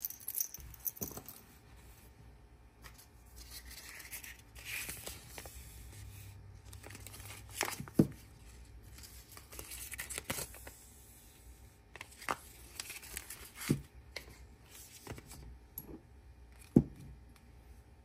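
Hands peeling a wide washi tape from its roll and rustling paper on a desk, with several sharp knocks as items are set down; the loudest knocks come about eight seconds in and near the end.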